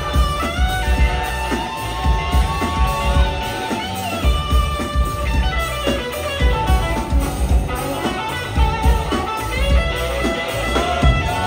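Live rock band playing an instrumental passage: electric guitar lines of held notes with small bends over a steady drum beat.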